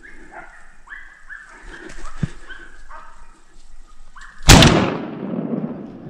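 Hunting dogs baying at a distance, calling about ten times in the first four seconds as they drive wild boar. About four and a half seconds in, one loud gunshot from the hunter's gun cracks out and echoes away over the next second or so.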